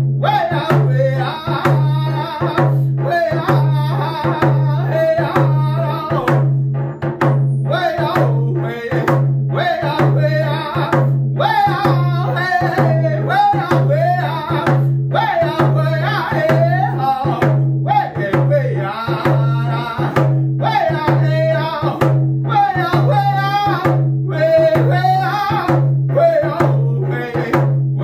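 A man singing a round dance song in a high voice while beating a steady rhythm on a hand-held frame drum with a beater.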